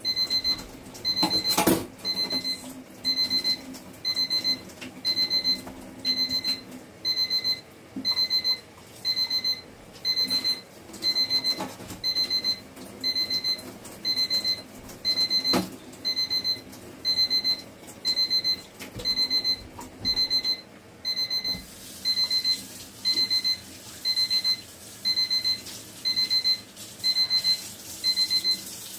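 Digital timer alarm going off: a high electronic beep repeating in quick runs about once a second, unattended. A couple of sharp clatters from dishes at the sink break in, one near the start and one about halfway.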